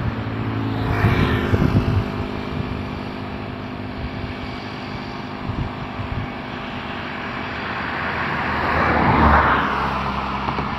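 Motor vehicle engine running steadily, with the sound swelling as traffic passes about a second in and again near the end.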